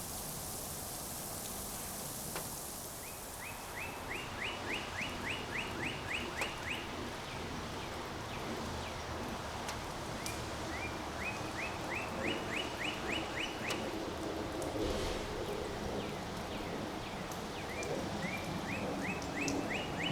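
A songbird singing a run of about a dozen quick, evenly spaced notes that climb slightly then hold, repeated three times, over a steady hiss of rain and wind that is strongest in the first few seconds.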